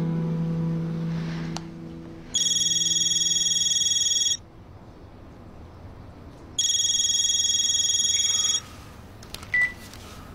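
Cordless home telephone ringing with an electronic ringtone: two rings of about two seconds each, about two seconds apart. A few small clicks and a short beep follow near the end.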